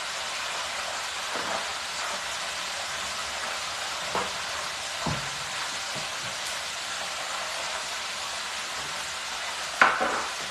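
Steady sizzle of chicken frying in hot oil in a countertop deep fryer, with a few soft knocks and one sharp metal clatter near the end as a wire cooling rack on a sheet pan is handled.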